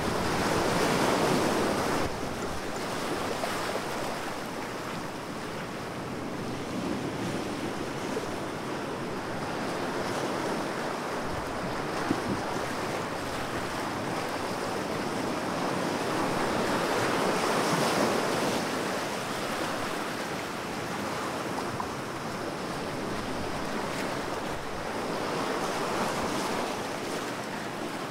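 Ocean surf: a steady rush of waves that slowly swells and eases, peaking every several seconds.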